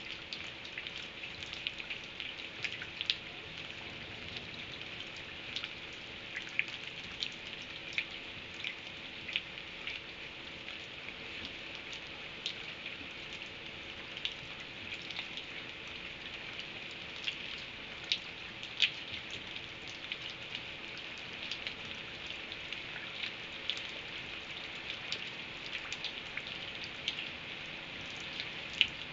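Rain falling steadily, a constant hiss with irregular sharp ticks of drops hitting a surface.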